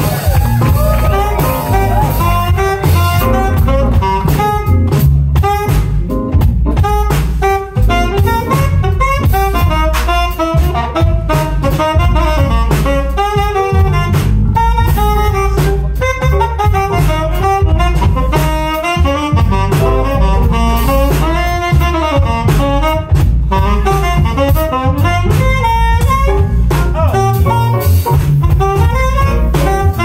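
Live jazz band playing: saxophone and trumpet carrying the melody over a drum kit.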